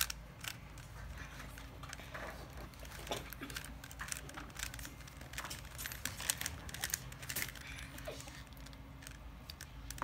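Plastic Rubik's cube being twisted by hand: an irregular run of quick plastic clicks and clacks as the layers are turned.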